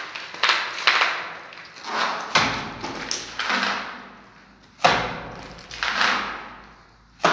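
Trowel scooping wet cement mortar from a metal pan and slapping it into a cut-out in a brick wall: about nine separate sharp scrapes and slaps, each with a short ringing tail.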